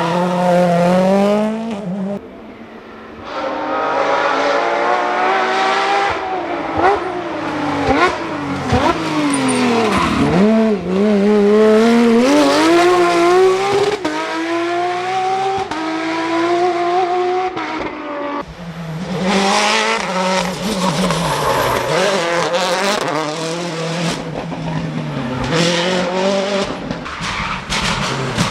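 Rally cars driven flat out on a special stage: engines revving hard, the pitch climbing and dropping through gear changes and braking, with tyres squealing at times. The sound changes abruptly about two seconds in and again past the halfway point, as a different car takes over.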